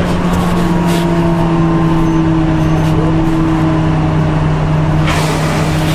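Nissan Diesel compressed-natural-gas city bus running, heard from on board: a steady engine drone with a whine that slowly falls in pitch, and a short hiss about five seconds in.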